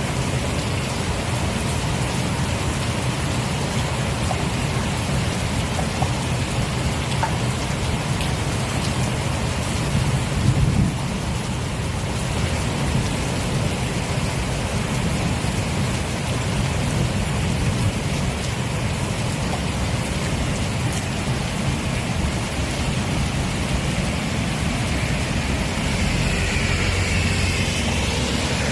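Heavy rain pouring steadily in a summer storm, with a brief low rumble about ten seconds in. Near the end a whine that rises and falls in pitch comes in over the rain.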